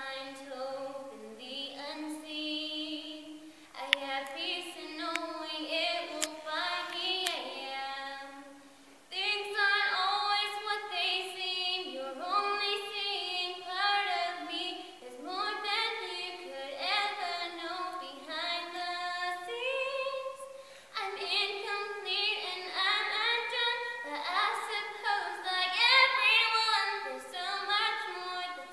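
A girl singing a cappella solo, with no accompaniment. She starts softly and grows louder and fuller from about nine seconds in. A brief sharp click about four seconds in.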